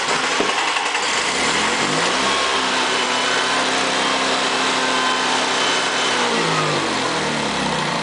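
Honda EV6010 generator engine starting, its pitch climbing over the first two seconds, running steadily for about three seconds, then shutting down with its pitch falling as it winds down. It cuts out at the three-second interval of the generator's low-oil-pressure shutdown, as if it senses a lack of oil pressure, even though the oil pressure sender is grounded out with a jumper wire.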